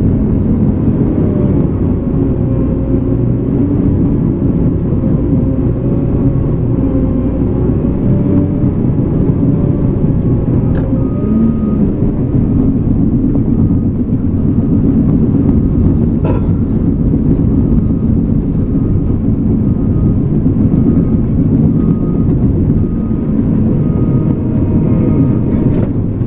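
Cat D5K2 dozer's diesel engine running steadily under load. From about eleven seconds in, a short beep repeats about once a second, with an occasional sharp click.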